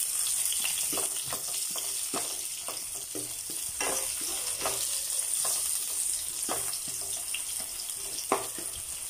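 Sliced red onions sizzling in oil in a non-stick wok, with a steady high hiss. A spatula scrapes and taps against the pan in short, irregular clicks as the onions are stirred.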